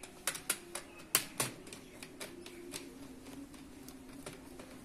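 Irregular sharp clicks and taps of a screwdriver, fingers and wire ends on the plastic back of a modular switchboard as wires are fixed into its terminals, bunched in the first second and a half and sparser after.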